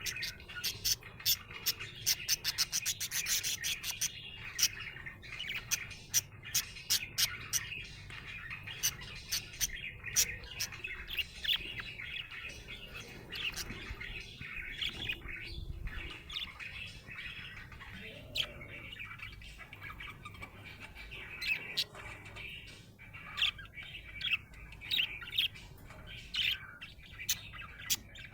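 Budgerigar chirping and warbling: many short, sharp chirps, with a fast run of them a few seconds in, over continuous chattering, the sound of a contented budgie.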